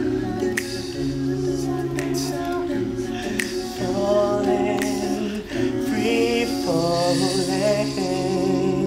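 Male a cappella group singing in close harmony: held chords from the backing voices that change every second or so, with a male lead voice singing over them.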